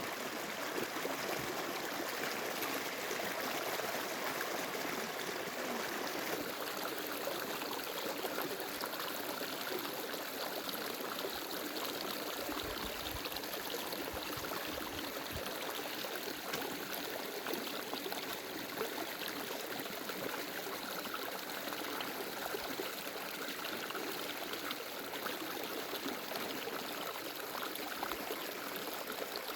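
Steady sound of water flowing in a stream, an even hiss with no break, with a few faint low bumps about halfway through.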